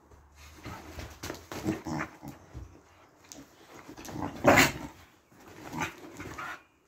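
Two six-month-old American Staffordshire Terrier puppies play-fighting, growling and yapping in short irregular bursts, with the loudest outburst about four and a half seconds in.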